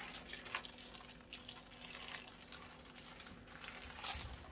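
Faint rustling of baking parchment being peeled off a thin sponge cake sheet, a little louder about four seconds in as the sheet comes away.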